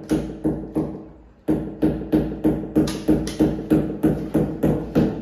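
Hammer driving a small nail into a wall in quick light taps, about four a second, each with the same metallic ring. The taps stop briefly about a second in, then resume at the same pace.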